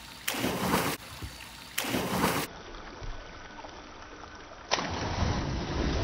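Two short bursts of rushing noise in the first two and a half seconds, then, nearly five seconds in, a sudden, heavy splash as a diver plunges into a swimming pool, with water churning on afterwards.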